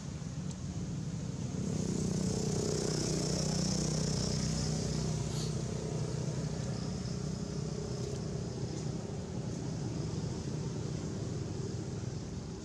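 Low, steady engine hum of a motor vehicle that swells about two seconds in and slowly eases off, with a high hiss over it for a few seconds.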